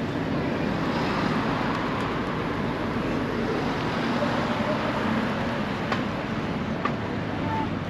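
Town street ambience: a steady hum of road traffic with cars passing close by, and a couple of light clicks near the end.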